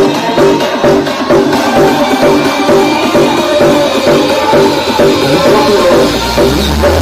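Music with a steady drum beat played very loud through a large 'sound horeg' street sound system under test. A deep bass swell builds near the end.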